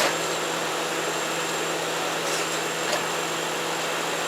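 Sawmill engine running steadily at a constant speed, with a couple of faint clicks.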